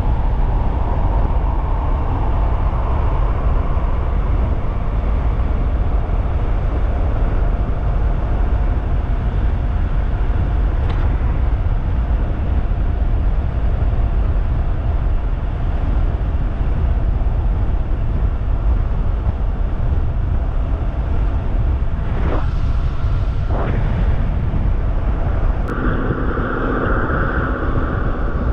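Wind rushing over the microphone with tyre and road noise from a 3000-watt DIY e-bike at speed, a faint steady motor whine underneath. Near the end a higher, steadier tone sets in as the bike slows.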